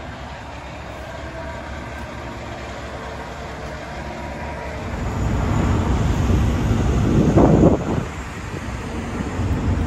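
A heavy vehicle running with a low rumble that grows louder from about halfway through, peaks in a loud surge near the three-quarter mark, then eases off somewhat.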